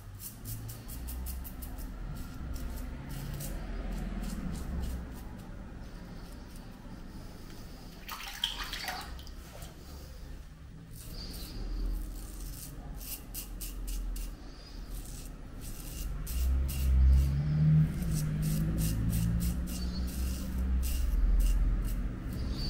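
Safety razor scraping through lathered beard stubble in short strokes, a crisp rasping crackle several times a second, in runs with brief pauses and a short swish about eight seconds in. A steady low hum runs underneath.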